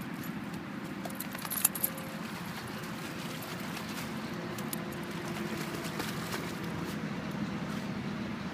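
Ibizan hound digging in soft muddy ground, its paws steadily scraping and scattering earth, with two sharp clicks near two seconds in.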